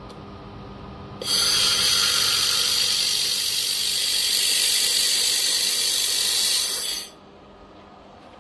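Handheld fiber laser welding gun firing, with its shielding gas hissing loud and steady. The hiss starts suddenly about a second in and cuts off sharply about six seconds later.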